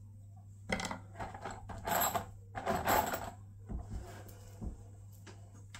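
Clattering and light knocks from handling small plastic wall plugs, one red plug being pushed into a hole drilled through wall tile, followed by a few small clicks.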